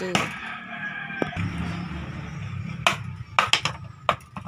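A bolo (machete) blade knocking into a short section of bamboo to split it in half. There is one sharp chop right at the start and four more quick knocks in the second half.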